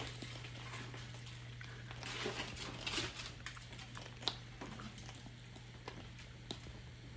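Parrots nibbling shredded wheat: scattered small clicks and crackles of beaks breaking the cereal, busiest a couple of seconds in, over a steady low hum.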